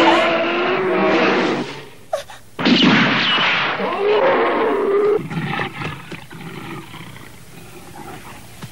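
A brown bear roaring twice, two long, rough roars with a short gap between them, then it goes quiet apart from a few scattered knocks.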